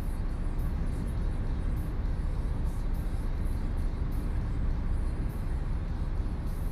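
Strong wind buffeting a stationary truck's sprung cab, heard inside as a steady low rumble with no engine running.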